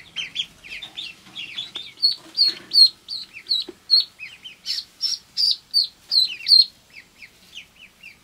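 Ducklings peeping constantly: many short, falling peeps overlapping, with a louder, shriller run of peeps for about five seconds in the middle.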